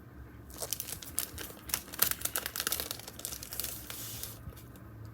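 Sticker packaging being handled: a dense run of crinkling and crackling, busiest in the middle and dying away near the end.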